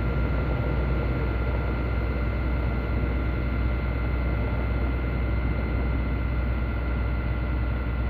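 Firefighting helicopter in flight, a steady drone of rotor and engine with a constant high whine.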